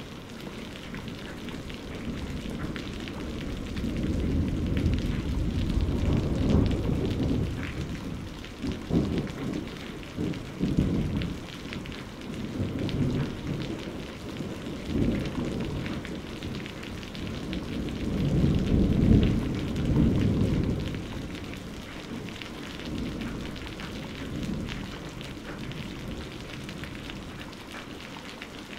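Iwata Eclipse airbrush spraying paint: a steady hiss of air with a fine sputter, and low rumbling swells that rise twice, a few seconds in and again about two-thirds through.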